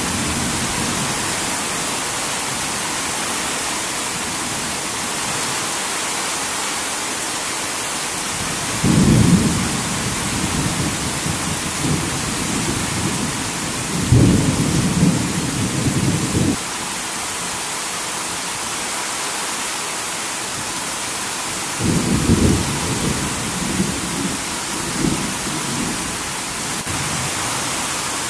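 Heavy rain on a corrugated tin roof, a steady hiss throughout, with low rumbles of thunder three times, about nine, fourteen and twenty-two seconds in; the second rumble cuts off suddenly.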